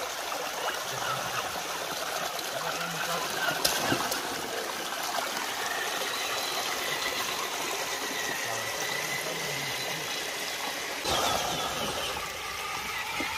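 Shallow creek water running over rocks while a Traxxas Summit RC truck drives through it, its electric drivetrain giving a thin steady whine through the middle stretch. Two sharp knocks come about four seconds in, and near the end the splashing from the wheels churning the water gets suddenly louder.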